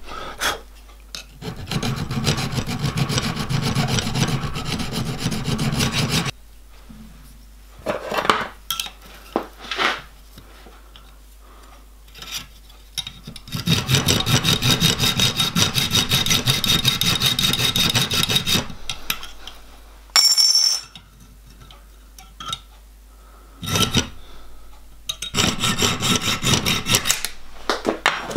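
A thin metal strip clamped in a bench vise is hand-filed and cut with a junior hacksaw: runs of quick, rasping back-and-forth strokes, with pauses and a few knocks between them. A short metallic ring sounds about two-thirds of the way through.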